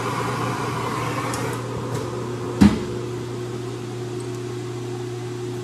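Steady mechanical hum, with the hiss of a MAP gas torch heating a shrink-fit tool holder for the first couple of seconds. A single sharp metal clack comes about two and a half seconds in.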